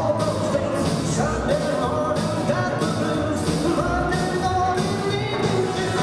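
Rock 'n' roll music with a singer and a steady beat of about two strokes a second.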